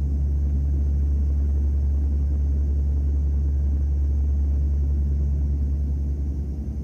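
Airliner cabin noise in flight: the steady low drone of the engines and rushing air, heard from a window seat.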